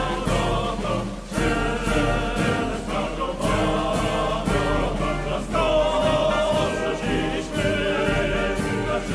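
Background music: a choral song, voices singing together over instrumental accompaniment with a steady beat.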